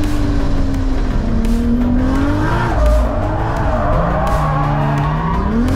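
Single-turbo 2JZ-GTE straight-six in a Mk IV Toyota Supra revving hard as the car drifts through a corner, its pitch dropping sharply about halfway through and climbing again near the end, with tyres squealing.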